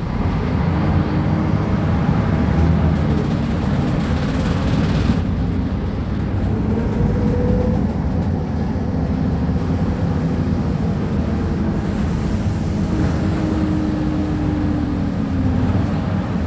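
Diesel engine of a Mercedes-Benz O500UA articulated bus running with a steady low rumble. A whine over it rises in pitch and falls back a few times, as from the ZF Ecomat automatic gearbox.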